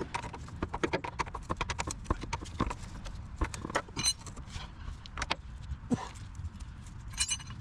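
Irregular rapid metallic clicks and knocks of hand tools fitting a new inline fuel filter into the fuel line, densest in the first few seconds and then more scattered.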